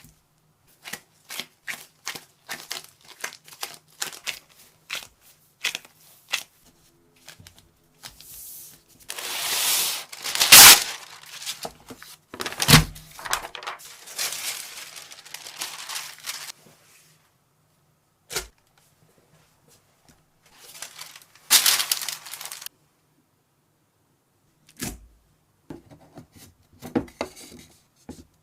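Hands handling craft materials: a quick run of light clicks and taps, then bouts of rustling and tearing like plastic film or tape being pulled, with two sharp thumps in the middle and a few more taps near the end.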